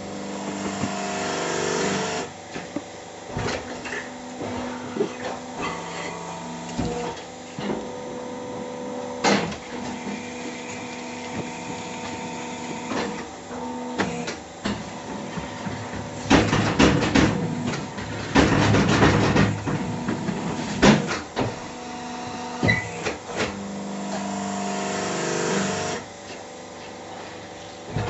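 Hydraulic concrete block-making machine working through its cycles: a steady whine that builds and cuts off twice, once near the start and again near the end, scattered metal clanks and knocks, and a loud rattling stretch of about four seconds past the middle.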